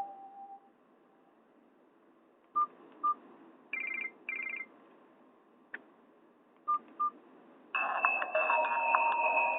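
Small phone loudspeaker of a Nokia 216 playing Nokia N78 ringtones. After a few short electronic beeps and two brief buzzy tones, a new electronic ringtone melody starts about eight seconds in.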